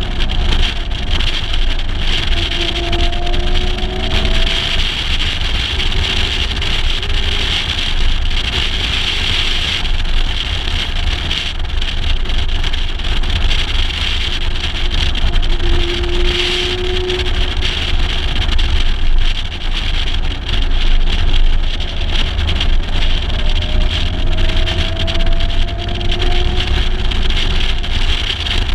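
Mercedes-Benz 300 SL Gullwing's fuel-injected straight-six running on the move, its pitch rising a few times as the car accelerates, heard from a camera mounted outside the car under heavy wind noise on the microphone.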